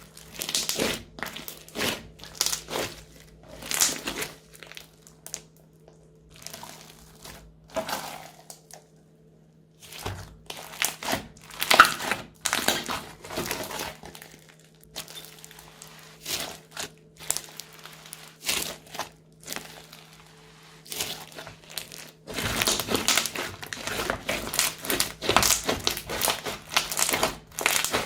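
Crunchy slime being squished and pressed by hand, crackling and popping in irregular bursts, with a brief lull and a dense run of crackling near the end. A faint steady hum lies underneath.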